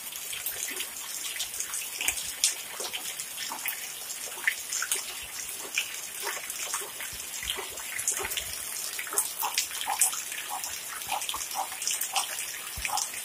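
Steady rain, with water running off the edge of a corrugated roof and falling in many separate, irregular drips over a constant hiss.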